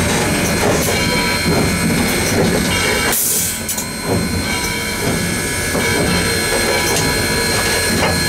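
Cab noise of Southern Railway 630, a 2-8-0 steam locomotive, rolling along: a steady rumble and rattle with a few thin high tones. A brief burst of hiss comes about three seconds in.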